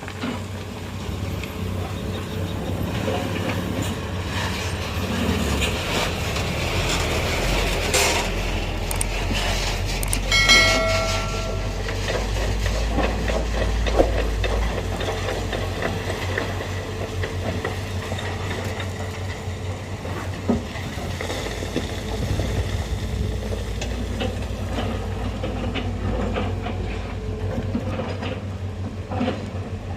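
Heavy diesel machinery, dump trucks and an excavator, running with a steady low rumble and clatter, with a short horn toot about ten seconds in and a couple of sharp metallic knocks later on.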